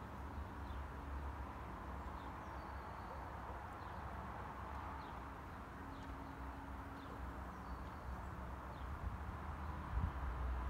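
Outdoor ambience: scattered faint bird chirps over a steady low rumble and hiss, with a brief low bump near the end.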